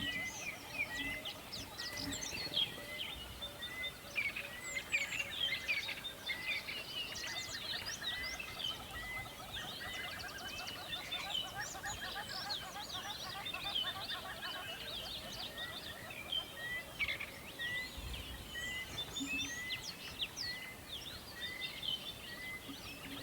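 A chorus of many birds chirping and singing at once, with one bird repeating a short note at a steady pace beneath the busier trills, over a low steady hiss of a flowing river.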